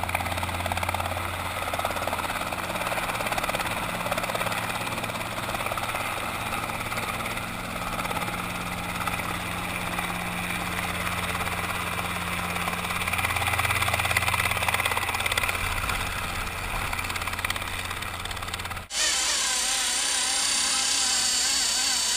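A Robinson R22 helicopter's piston engine and rotor running steadily as it hovers low, with a deep rotor hum. About three-quarters of the way through it cuts suddenly to the high, wavering whine of a radio-control model helicopter in flight.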